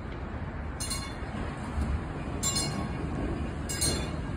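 1944 PCC streetcar rolling slowly on its rails with a steady low rumble. Three short, high metallic clinks come from the wheels and track, about every second and a half.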